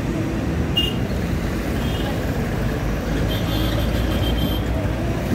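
Busy road traffic: trucks, cars and motorcycles passing with a steady low engine rumble and tyre noise. Short high-pitched tones ring out about a second in and again for about a second past the middle.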